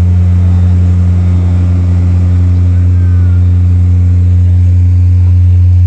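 Truck-mounted sound system's subwoofers putting out a loud, steady, deep bass tone during a sound check, unchanging in pitch.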